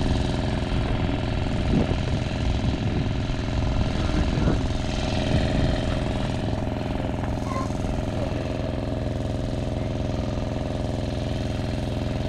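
Generator engine running steadily, a continuous even rumble.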